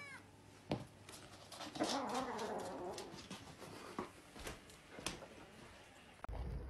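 A kitten growling for about a second while it guards a sausage it has taken, with a few sharp knocks around it.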